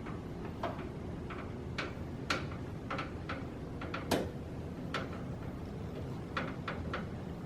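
Light clicks and taps, irregular and spaced out, from computer parts being handled and fitted into a PC case, over a low steady background hum.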